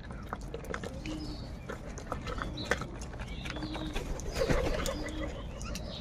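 A flock of house crows feeding: sharp clicks of beaks pecking, scattered calls, and one louder harsh caw about four and a half seconds in. Short low hooting notes and high chirps from other birds come and go.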